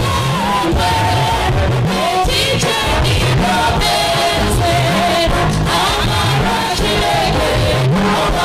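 Voices singing a gospel worship song over a band with a steady beat and a moving bass line.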